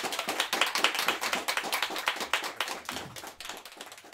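Audience applauding with many quick, distinct hand claps, loudest in the first couple of seconds and thinning out toward the end.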